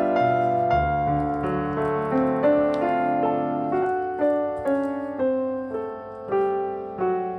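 Background piano music: a gentle melody of single struck notes over softer held chords, each note fading after it is played.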